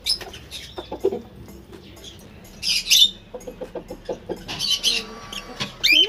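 Lovebirds giving shrill chirps and squawks, loudest about three seconds in and again near five seconds, with quieter, lower chattering calls between.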